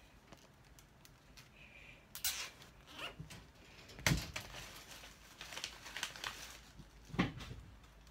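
Handling noises from assembling metal wire lattice panels with zip ties. Light clicks and crinkling or rustling, with two dull thumps about four and seven seconds in.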